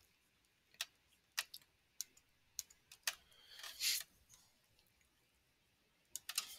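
Faint, sharp computer-mouse clicks, about five spaced roughly half a second apart, then a brief soft rustle about three and a half seconds in, and a few more clicks near the end.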